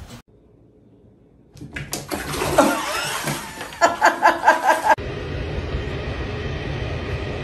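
Whirlpool bathtub jets churning and splashing the water, with a quick run of short, loud, high cries just before it cuts off; then a steady low rushing hum.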